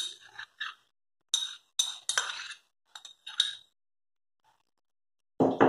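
Metal spoon clinking and scraping against a small ceramic bowl while minced garlic is scooped out: a string of short, ringing clinks, with a louder knock near the end.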